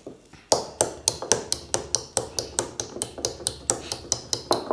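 Metal whisk clacking against a plastic mixing bowl, about four quick knocks a second, as it stirs a stiffening rice-flour dough.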